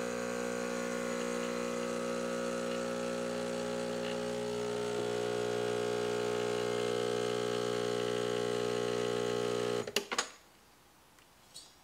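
Breville Barista Express's vibratory pump buzzing steadily while pulling an espresso shot, then cutting off abruptly about ten seconds in, followed by a couple of clicks.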